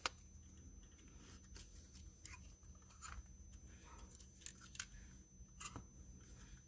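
Quiet bench work on a circuit board: scattered light clicks and taps from small hand tools and parts being handled, with one sharp click at the start and a few more near the end, over a faint steady hum.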